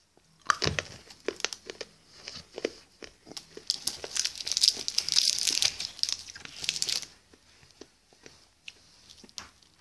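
A child crunching and chewing two joined candy fizzers, close up: irregular crackling clicks, thickest in the middle few seconds, thinning to a few scattered clicks near the end.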